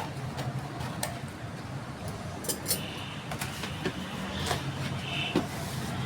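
Packing and handling noises: scattered clicks and short rustles from wrapping a cardboard box, with a couple of brief higher squeaks near the middle, over a steady low hum.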